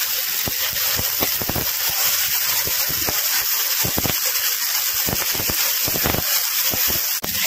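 Garlic paste frying in hot oil with fried onions in a kadai: a steady sizzling hiss, with scattered clicks and scrapes of a metal spatula stirring against the pan.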